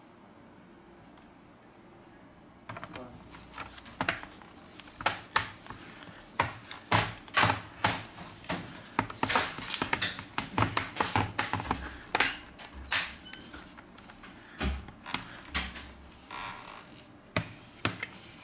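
Plastic back cover of a Samsung Galaxy Tab A (SM-T580) being pressed onto the tablet around its edges. From a few seconds in there is a quick, irregular run of sharp clicks and snaps as the cover's clips seat.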